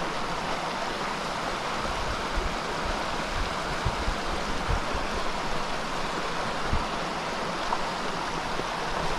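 Steady rushing and burbling of a small mountain trout stream flowing over rocks, with a few soft low bumps now and then.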